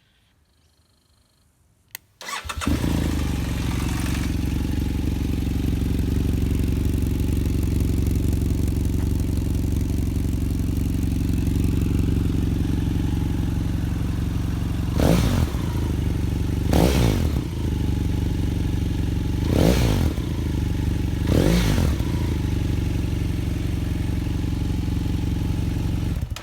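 BMW F800 GS motorcycle's parallel-twin engine, breathing through a Barrett slip-on muffler, cranks and starts about two seconds in and idles steadily. It is blipped four times in quick rises and falls of pitch, then cuts off at the very end.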